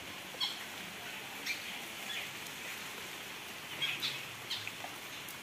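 Small birds giving short high chirps, about half a dozen scattered through, over a steady hiss of falling rain.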